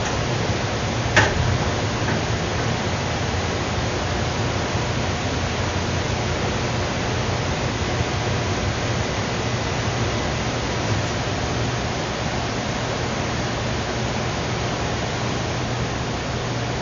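Steady hiss with a low hum underneath, and a single sharp click about a second in.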